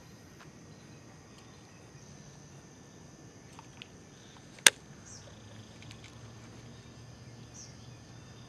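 Faint, steady chirring of insects in the lakeside vegetation, with a single sharp click a little past halfway through.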